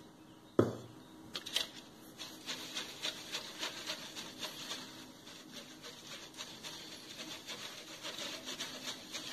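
A sharp knock about half a second in, then a paintbrush scraping and swishing round a plastic plate in quick repeated strokes, stirring water into acrylic paint to thin it.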